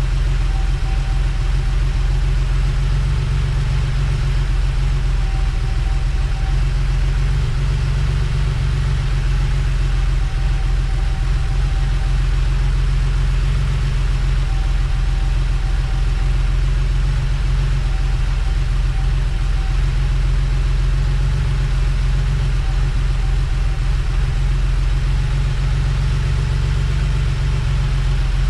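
Vacuum pump running steadily, evacuating a car's air-conditioning system of air and moisture before recharging. A constant low hum, with a faint higher tone coming and going every couple of seconds.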